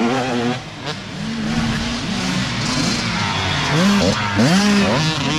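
Youth dirt bike engines revving hard as riders pass along a dirt trail, the pitch climbing and dropping with each throttle blip; about four seconds in, a green Kawasaki's engine revs up sharply twice as it goes by. Near the start, a rear tyre spins and throws a spray of dirt.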